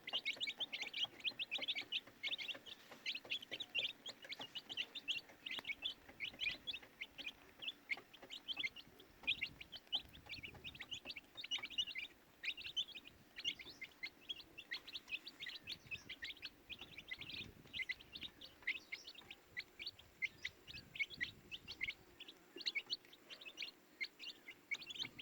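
Baby chicks peeping: many short, high chirps, several a second, overlapping without a break.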